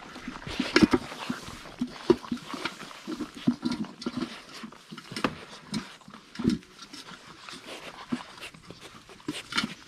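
English Setter puppies eating kibble from a stainless steel pan: irregular crunching and chewing, with many sharp clicks.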